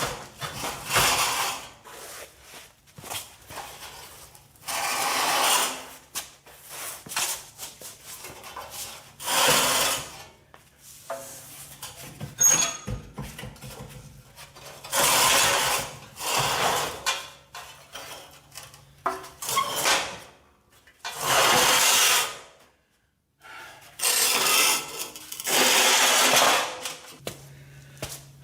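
Tools at work on the underside of a car: repeated noisy bursts of a second or two at uneven gaps, with quieter scraping and rubbing in between.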